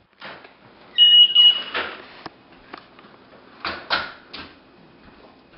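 A short high electronic beep about a second in, then a few sharp knocks and clatters, with a second group of knocks later on.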